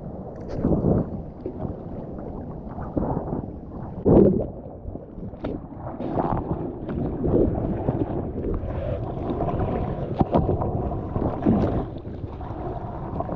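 Seawater splashing and washing over a surfboard's nose in irregular surges, the loudest about four seconds in.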